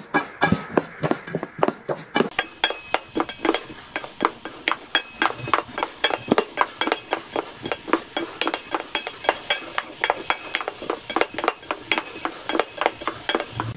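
A mixing utensil striking a ceramic mixing bowl over and over, a quick run of sharp clinks at about four to five a second: batter being stirred or whisked by hand.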